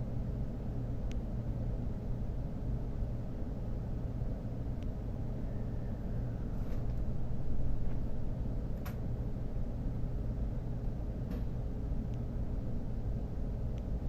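Cabin noise inside a JR Central N700S Shinkansen car: a steady low rumble of the train running, with a faint steady hum and a few light ticks.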